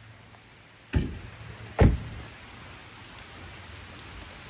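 A car door shuts twice, about a second in and again just under a second later, the second thud louder, over a steady low hum and the hiss of rain.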